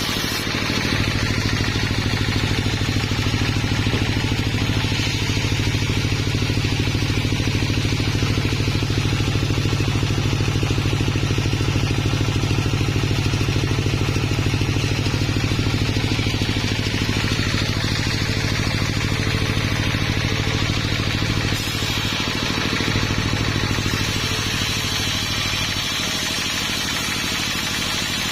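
Engine of a portable sawmill running steadily with a deep hum. It picks up about a second in and eases back in steps late on, as the load on it changes.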